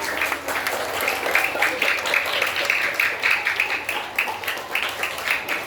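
A group of schoolchildren applauding: many hands clapping in a dense patter that thins out near the end.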